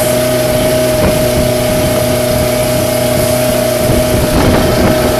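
Small passenger boat's engine running steadily: an even drone with a constant high whine, over the rush of water and wind.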